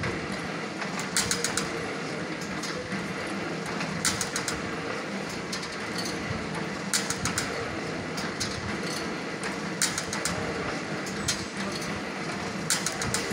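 Jute mill cloth-folding machinery running: a steady hum under a short burst of clattering clicks that comes back about every three seconds, five times over.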